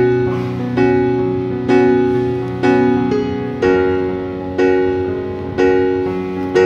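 Background music: piano chords struck about once a second, each fading before the next.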